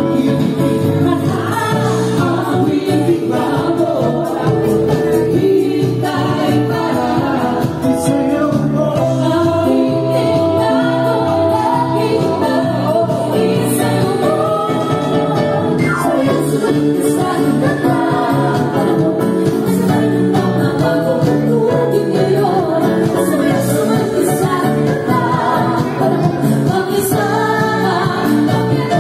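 Live band music: two women singing together into microphones over acoustic guitar, played through PA loudspeakers.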